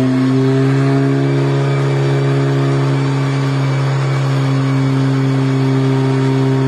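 Audi S3 8V's turbocharged 2.0-litre four-cylinder engine running through an Armytrix turbo-back valved exhaust, held at a constant engine speed. It gives a loud, steady exhaust drone whose pitch lifts slightly at the start and then stays level.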